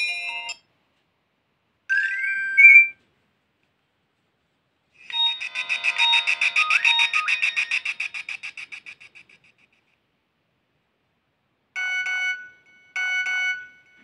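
Nokia 1209's built-in alert tones playing through the phone's small speaker one after another as the melody list is scrolled. A melody cuts off at the start, then comes a short rising chirp, then a long, fast-pulsing warble that fades out, and near the end two short beep phrases.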